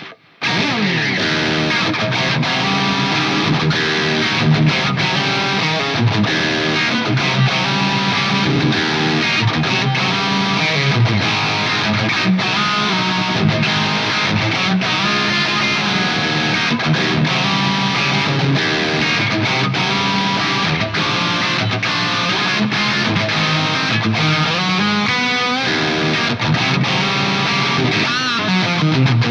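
Distorted electric guitar played through an Axe-FX III on a patch that tone-matches an ADA MP1 preamp, an 80s rock lead tone. It plays a run of fast notes with a long falling pitch slide at the start, a rising slide near the end and another falling slide just after it.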